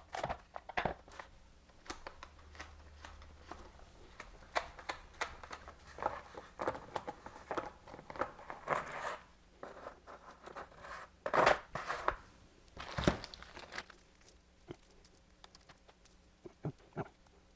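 Irregular clicks, scrapes and rattles of hands working the side cover and chain off a battery-powered chainsaw, with two louder clatters a little past the middle.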